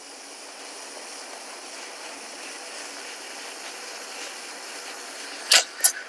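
Espresso machine steam wand with a four-hole tip running down in a pitcher of milk: a steady hiss as the milk heats. Two short, louder bursts come near the end.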